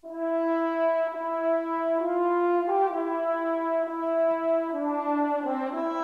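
Background music of long held notes in chords, starting suddenly at the beginning and shifting pitch every second or two.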